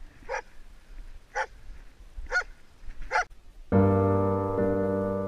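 A hunting dog barks four times, about once a second. A little over halfway through, louder piano music cuts in abruptly and carries on.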